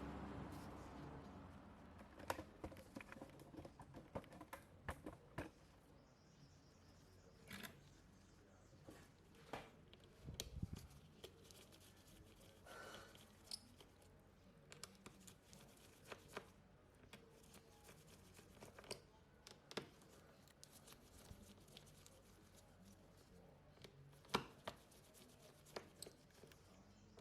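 Faint, irregular small clicks and ticks of a precision screwdriver and metal tools on the screws and plastic inner cover of a Samsung Galaxy A52 as the screws are taken out.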